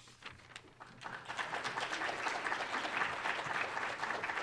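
An audience applauding: a few scattered claps, then full applause from about a second in.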